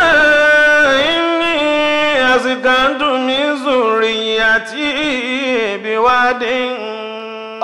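A man's voice chanting in the melodic style of Qur'anic recitation (tajwid), holding long notes with slow rises and falls and ornamented turns.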